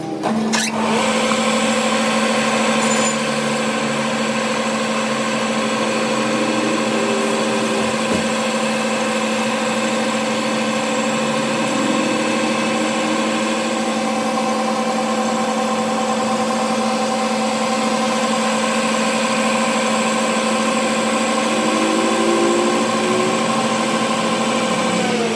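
Electric motor-driven workshop machine running steadily with a constant-pitch hum.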